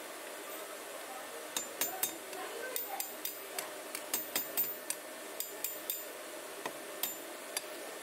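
Hammer striking a thin iron rod on a steel block anvil: about twenty sharp metallic strikes in an irregular run, starting about a second and a half in and stopping near the end.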